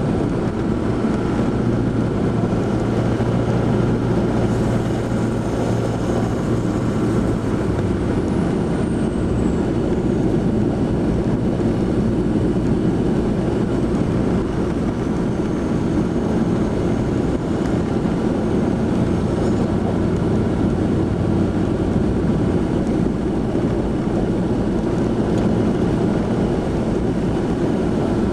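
A vehicle's engine and tyres on a snow-covered road, heard from inside the cabin as a steady low drone while driving. A humming engine note holds steady, then eases about eight seconds in.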